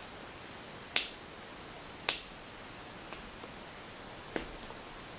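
Three sharp clicks at intervals of a second or two, with a fainter one between the last two, as the laptop's screen assembly and its connector are handled.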